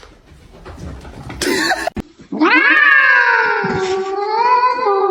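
A cat giving one long drawn-out yowl, starting about two and a half seconds in: it jumps up sharply, slides down in pitch and is then held.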